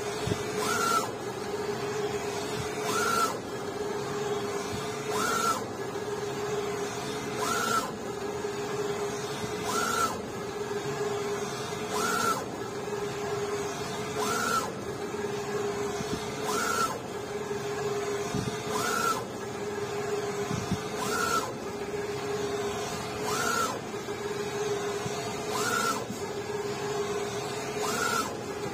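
Four-colour flatbed UV printer printing on wooden panels, its print-head carriage shuttling back and forth over a steady machine hum. A short whine and hiss come at each end of travel, about every two and a quarter seconds.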